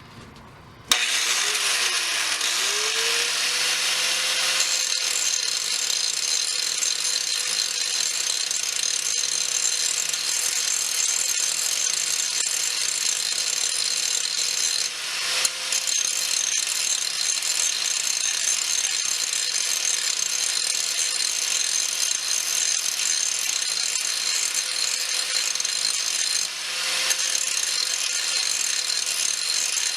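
Angle grinder with a grinding wheel starting about a second in, spinning up to a steady whine, and grinding down the pitted steel faces of a body hammer. The level dips briefly midway and again near the end.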